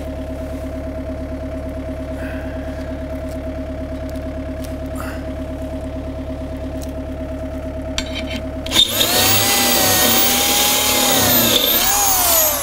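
Corded electric drill starting about three-quarters of the way in and running loud, its pitch wavering and dipping as the bit works into the metal bracket on top of the post. Before that there is only a steady engine-like hum.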